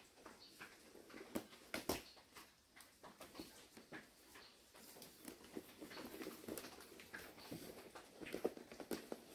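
Faint, scattered taps and scratches of a kitten's claws pawing and climbing at a plastic feed bag and a hanging cloth bag.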